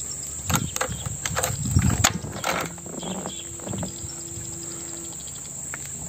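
Steady high-pitched insect drone, with a run of short knocks and rustles in the first three seconds.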